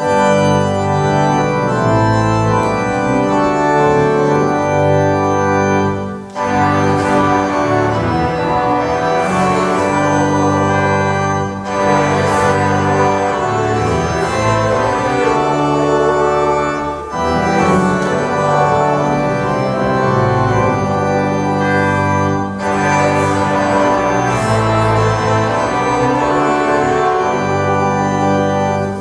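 Organ music: sustained, held chords played in phrases, with a short break between phrases about every five and a half seconds.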